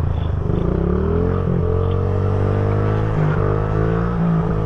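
Small 50cc pit bike engine running under throttle while riding, revving up in the first second or so, then holding with brief dips as the throttle eases.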